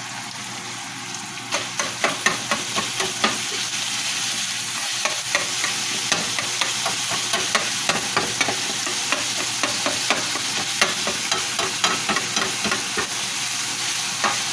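Ground beef sizzling as it fries in a pan, stirred with a utensil that clicks and scrapes against the pan many times. The sizzle gets louder about a second and a half in.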